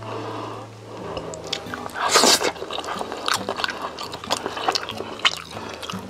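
Close-miked eating sounds: one loud bite about two seconds in, then chewing with moist clicks and smacks.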